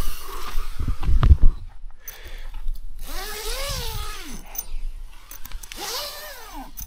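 Someone getting into a camping hammock: a few low thumps about a second in, then two drawn-out sounds that rise and fall in pitch, with rustling of fabric.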